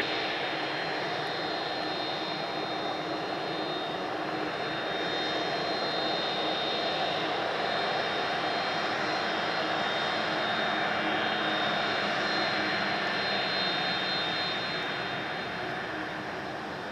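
Airbus A300-600ST Beluga's twin turbofan jet engines running as the freighter taxis past: a steady rush of jet noise with a thin high whine. It grows slightly louder, then fades over the last few seconds as the aircraft moves away.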